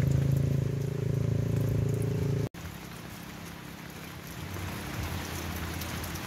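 A steady low engine hum runs for about the first two and a half seconds and cuts off suddenly. Then comes steady rain: an even hiss of falling rain with scattered drops pattering.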